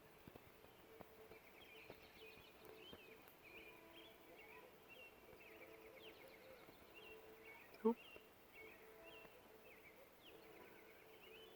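Faint dawn chorus of birds: many short chirps and calls throughout, over a low steady hum. A brief spoken "oop" about eight seconds in is the loudest sound.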